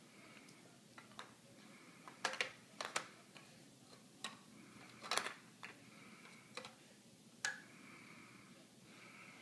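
Irregular sharp clicks and knocks of hard plastic as a baby's face and hands bump and nudge a plastic push toy on a rug, about ten over the stretch.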